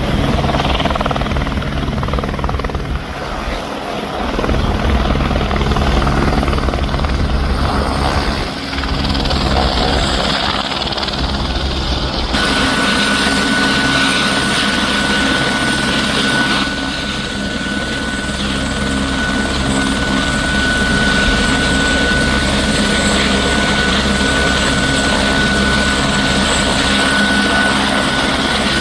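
Airbus AS350 Écureuil single-engine turbine helicopter running on the ground: steady turbine and rotor noise, with a high steady turbine whine from about twelve seconds in.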